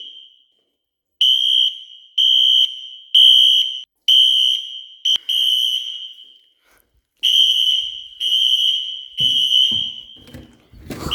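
Fire alarm horn of a Wheelock Exceeder HSR horn strobe sounding during a system test. It gives a high-pitched electronic tone in half-second beeps about once a second, in groups broken by pauses of about a second.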